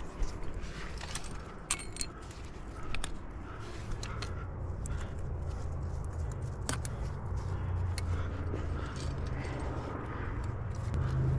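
Metal climbing gear (cams and carabiners) clinking and jingling in irregular clicks, with scraping against granite as the climber works up the crack, over a steady low rumble.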